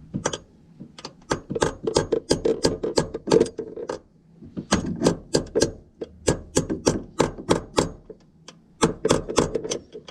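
Hammer blows on a socket, metal on metal, driving the new roller pin into a 2008 Chevy Silverado door hinge until it is seated flush. Quick, sharp taps about three or four a second, in three runs broken by two short pauses.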